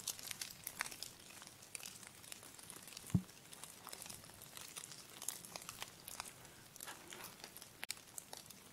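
Footsteps crunching and crackling through dry fallen leaves and twigs, a scatter of small snaps, with one duller thump about three seconds in.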